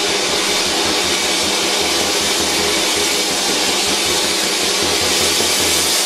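Gong in a full, sustained roar: a loud, steady, shimmering wash of many overtones that holds without dying away.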